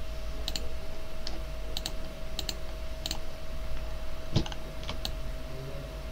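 Irregular clicks of a computer keyboard and mouse, about one or two a second, over a steady faint hum.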